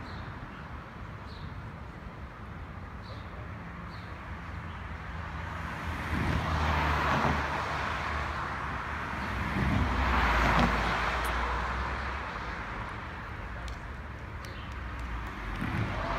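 Outdoor road traffic, with passing vehicles swelling up and fading away twice, about six seconds in and again about ten seconds in.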